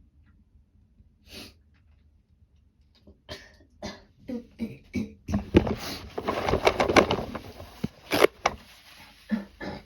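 A person with a sore throat at the start of a cold coughing: a single cough, then coughs coming faster and merging into a loud, rapid coughing fit about five seconds in, easing off with a few last coughs near the end.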